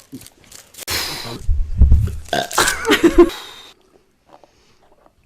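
A man letting out one long, loud belch, starting about a second in and lasting nearly three seconds, deep and rough at first and then turning more pitched before it stops.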